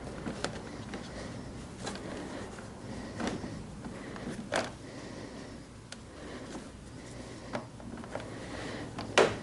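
Scattered light clicks and knocks of parts being handled on a motorcycle as hoses are routed and a cover is fitted, the loudest a sharp knock near the end.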